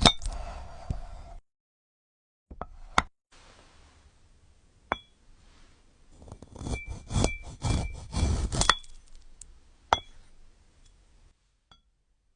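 Light clinks and taps on small hard objects, several leaving a short high ring, with a busier cluster of clinks and rustling about halfway through.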